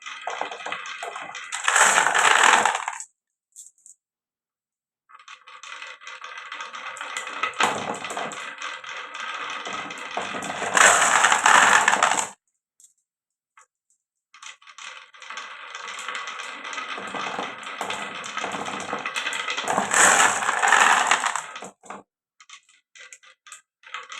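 Marbles rolling and clacking along a marble run track in three separate runs. Each run builds up to a loud burst of clatter and then cuts off abruptly.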